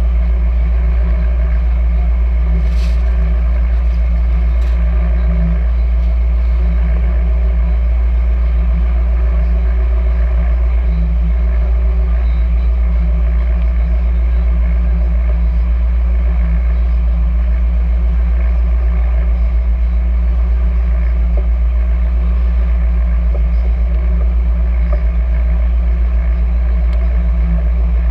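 Deadrise oyster workboat's inboard engine running steadily, a loud even low drone, with a couple of faint light clicks about three and five seconds in.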